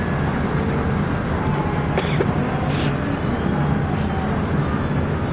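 Fireworks display going off: a steady low rumble of distant bursts, with a few sharp cracks about two, three and four seconds in, and faint voices from the watching crowd.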